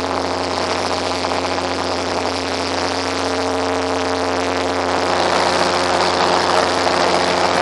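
A steady engine-like hum with a hiss over it, getting a little louder from about five seconds in.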